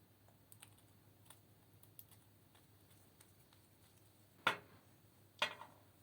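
Slime being worked by hand. A few faint small clicks, then two louder sharp crackling pops about a second apart near the end.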